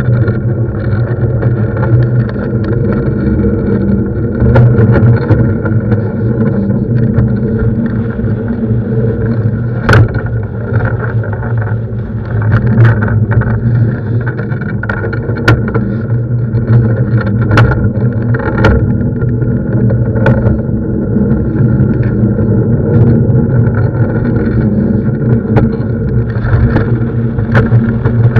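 Longboard wheels rolling over asphalt: a loud, steady rumble carried up the sail rig, with sharp clicks now and then.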